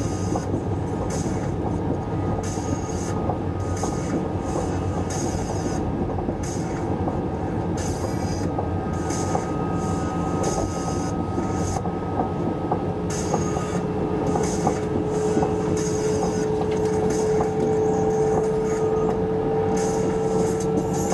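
Inside the cabin of an SJ 3000 (X55) electric train running at speed: a steady rumble of wheels on rail and air rushing past. A steady whine comes in a little past halfway and grows louder.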